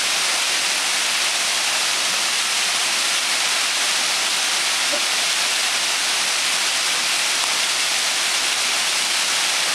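Waterfall pouring steadily: a constant, unbroken rush of falling water.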